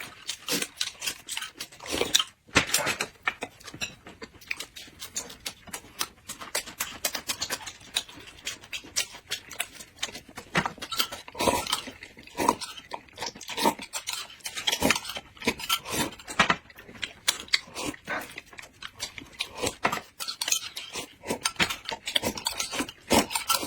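Close-miked eating sounds: a steady run of short clicks and knocks from chewing, mouth noises and utensils against dishes.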